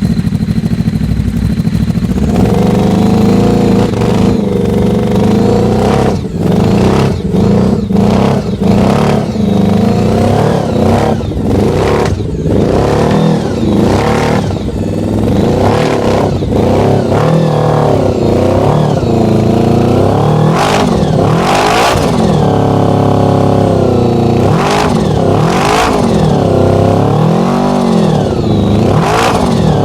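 Supercharged Honda VFR750 drag bike's V4 engine catches and settles into a loud idle, then is blipped in repeated short revs, with bigger, longer revs rising and falling through the second half.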